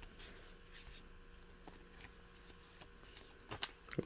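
Faint rustling and light ticks of trading cards and pack wrapping being handled, with a few sharper clicks near the end.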